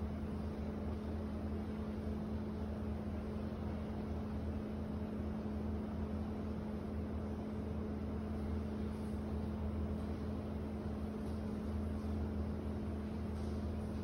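Steady apartment-alley ambience: a constant machine hum with a low, unwavering tone over an even hiss. A few faint ticks come in the second half.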